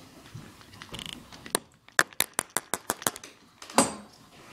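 Foam mini basketball bouncing on a hard floor in a quick run of about ten light, sharp bounces. One more knock follows near the end.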